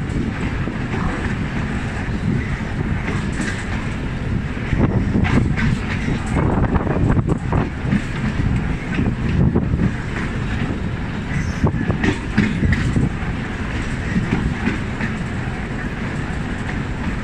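A train running along the track, heard from aboard a moving train: a steady heavy rumble broken by irregular clacks of wheels passing over rail joints.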